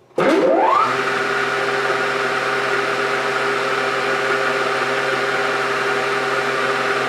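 Belt-driven knee mill's spindle motor switching on and spinning up over about half a second, then running with a steady whir. The spindle speed, without a VFD, is a little fast for the end mill.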